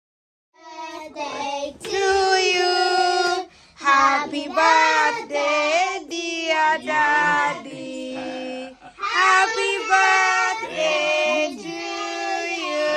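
Young girls singing together in high voices, holding some notes for a second or more.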